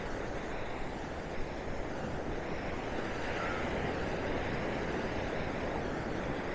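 Surf washing onto the beach: a steady, even wash of wave noise.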